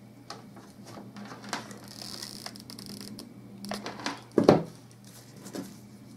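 Handling noises of a plastic flower pot being turned in the hands while a hot glue gun is put to it: light knocks and rustles, with one louder knock about four and a half seconds in.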